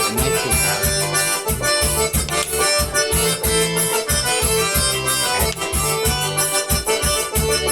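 Instrumental music from an electronic keyboard: an accordion-like melody over a steady bass beat.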